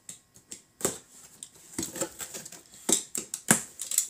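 A cardboard shipping box being opened and unpacked by hand: irregular scrapes, crinkles and clicks of cardboard and packing, with a few sharp clacks.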